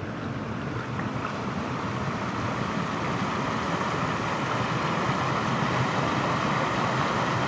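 Creek water rushing over small rocky rapids: a steady rush that grows a little louder.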